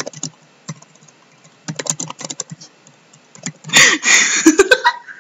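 Keystrokes on a laptop keyboard in short runs of clicks, then a woman laughing from a little under four seconds in, the loudest part, with more keystrokes mixed in.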